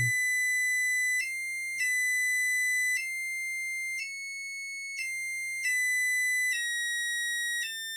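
Coil driven by a MOSFET switching circuit whining at its drive frequency: one steady high-pitched tone that steps slightly up and down in pitch about once a second as the frequency is tuned around the coil's resonance.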